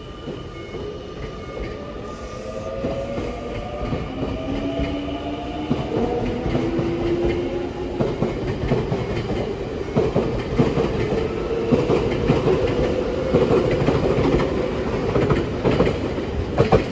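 Nankai electric train's VVVF inverter traction motors whining as it accelerates, several tones rising in pitch and then levelling off, with wheels clattering over the rails as it gets louder. This is a newer IGBT-type inverter sound rather than an older GTO inverter. A sharp click comes near the end.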